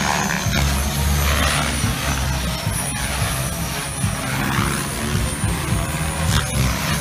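Two Oxy 3 electric RC helicopters flying, their rotors and motors making a steady buzz under a thin high whine that shifts up and down in pitch as the pilots work the throttle.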